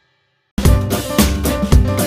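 Silence, then about half a second in, background music with a drum kit beat starts, with heavy hits about twice a second.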